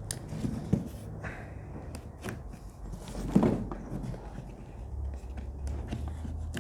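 Cardboard laptop box and its packaging being handled and unpacked: scattered rustles and light knocks, with a louder knock under a second in and the loudest one about three and a half seconds in.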